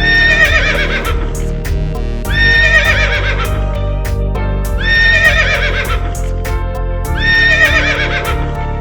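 A horse whinnying, the same neigh repeated four times about every two seconds, over background music with a steady beat.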